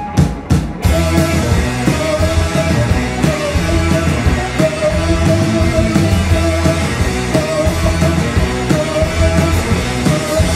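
Rock band playing on electric guitars, bass, drums and keyboard. A few drum hits open it, and the full band comes in about a second in, with a repeating melodic line over the driving rhythm.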